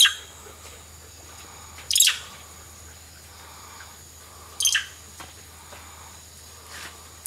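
Four short, sharp, high-pitched chirps a couple of seconds apart, over a faint steady high-pitched drone like insects.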